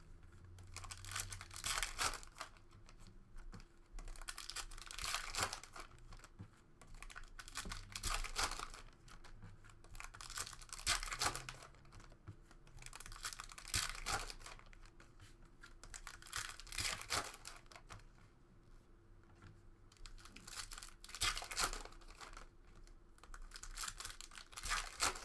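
2017-18 Panini Donruss Optic basketball card packs being torn open, their wrappers ripping and crinkling in short bursts a few seconds apart.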